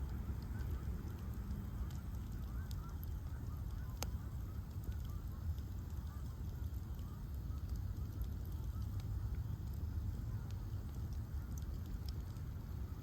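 Bonfire of ash logs burning with a steady low rush and scattered crackles and pops, one sharp pop about four seconds in.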